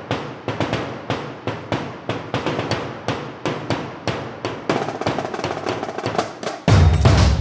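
Background music: a steady percussion beat at about four hits a second, with the full track and a heavy bass coming in suddenly and louder near the end.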